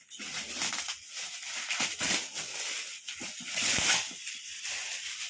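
Gift wrapping crinkling and rustling, with many small crackles, as a package is torn open and handled.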